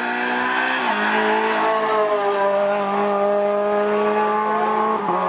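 Renault Clio 3 Cup race car's two-litre four-cylinder engine running at high revs as the car passes close by, its pitch dropping sharply about a second in and again near the end.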